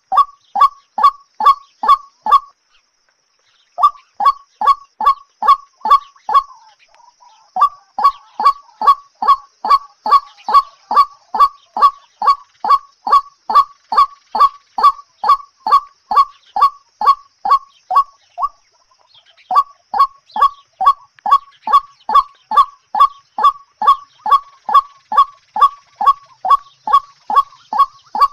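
A bird calling over and over in short, evenly spaced honking notes, about two a second, pausing briefly twice. A faint steady high hiss runs behind.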